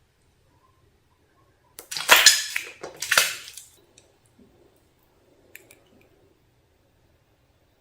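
A quick run of short, clattering handling noises about two seconds in, lasting under two seconds, then a couple of faint clicks a little later.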